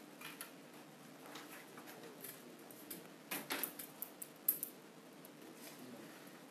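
Quiet classroom with scattered light clicks and rustles, the loudest cluster a little past the middle.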